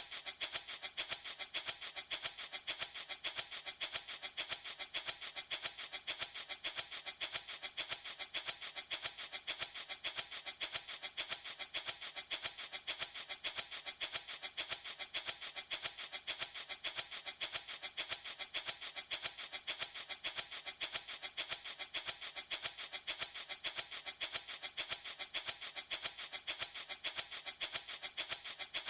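Handmade wooden baby rattle shaken continuously in a steady, even rhythm, its beads or pellets giving a bright, hissy rattle.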